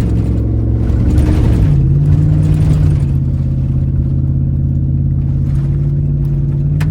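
Third-generation Dodge Ram pickup's Hemi V8 running under way at low speed on a dirt track, heard from inside the cab. The engine note shifts about one and a half seconds in, then holds steady.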